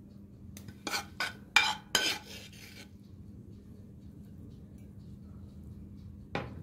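Stainless-steel ladle clinking and scraping against a ceramic plate as cauliflower rice is spread across it: a quick run of clinks and a scrape between about one and three seconds in, then one more clink near the end.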